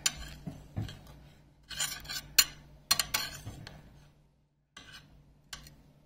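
Kitchen dishes and cutlery clinking and rattling as they are handled: a string of sharp clinks and short clattering bursts, the loudest about two and a half seconds in, then a few scattered clinks near the end.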